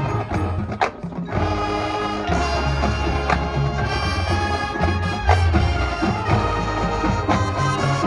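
High school marching band playing sustained brass chords over steady low bass and percussion, with a short break about a second in before the band comes back in.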